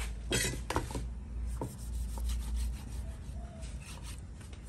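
Large kitchen knife scraping and cutting along the skin of a whole pangasius catfish as it is scored: a few strong short strokes in the first second, then a run of lighter, quicker scrapes.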